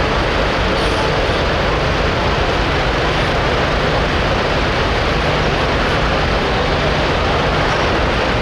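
Diesel engine of a hot farm pulling tractor running hard, loud and steady with no change in pitch.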